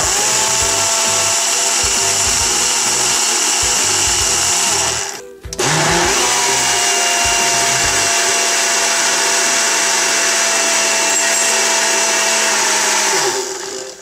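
Electric countertop blender with a stainless-steel jar running at speed, churning coconut milk and desiccated coconut, with a steady motor whine. It cuts out briefly about five seconds in, starts again, and winds down near the end.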